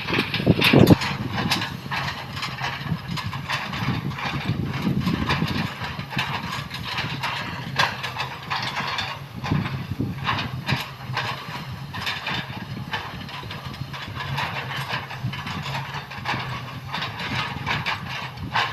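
Komatsu PC200 excavator's diesel engine running steadily, with frequent sharp knocks and cracks from the bucket chopping oil palm trunk. A heavier knock comes about a second in.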